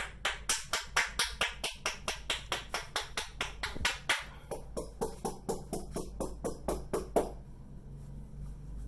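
Rapid, even percussive massage strokes: a masseur's hands striking the client's head in a quick rhythm of about four to five slaps a second, then stopping suddenly about seven seconds in.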